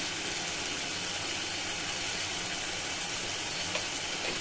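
Masala paste frying in oil in a kadai, a steady, even sizzle.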